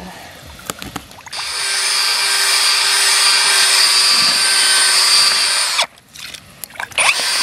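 Redverg cordless drill-driver spinning a mixer paddle through dry fishing groundbait in a bucket, a steady motor whir with a fixed tone. It starts about a second in, stops shortly before six seconds, and starts again near the end.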